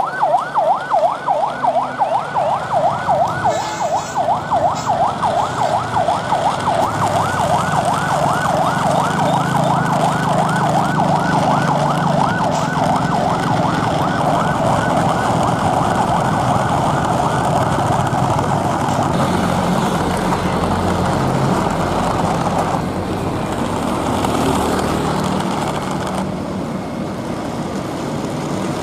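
A fast warbling siren, several rises in pitch a second, loudest at the start and fading away over about the first twelve seconds. A steady rumble continues after it.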